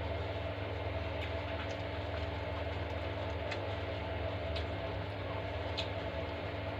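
A few soft, scattered mouth clicks from eating, over a steady low background hum.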